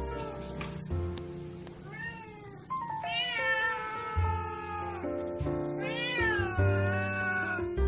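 Cat meowing over background music with a steady bass: a short meow about two seconds in, then two long drawn-out meows that rise and fall in pitch.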